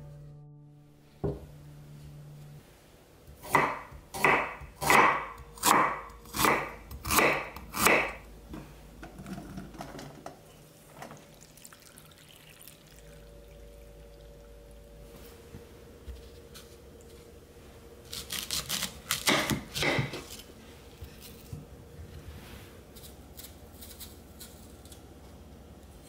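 Sliced ginger being washed by hand in a stainless mesh strainer set in a bowl of water: a run of about seven even strokes a few seconds in, then a quicker flurry about three-quarters of the way through.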